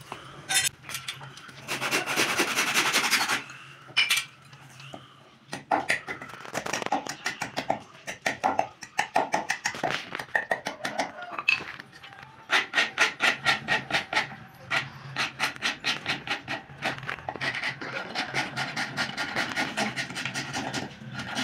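Hand tools working a wooden spoon handle: a blade shaving and scraping the wood in quick repeated strokes, then a metal file rasping back and forth on it in the last few seconds. A louder burst of noise comes about two seconds in.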